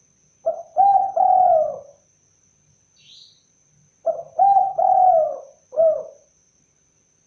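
Spotted dove cooing: two phrases a couple of seconds apart, the first of three notes and the second of four, the longer notes sliding down in pitch at the end. A faint short chirp from another bird about three seconds in.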